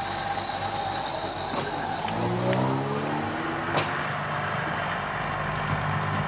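Diesel railcar's engine revving up as it pulls away, rising in pitch over a couple of seconds and then running steadily. A high hiss and a few sharp clicks are heard in the first few seconds.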